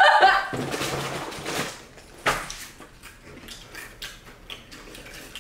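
A woman's laugh fades into soft, breathy giggling, followed by a few faint lip smacks as the couple kiss.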